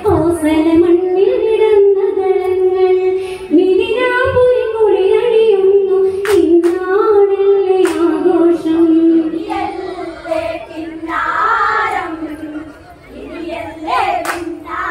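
A group of women singing a Malayalam Onamkali folk song together in unison, the melody held in long lines, with a few sharp claps. The singing dips briefly near the end.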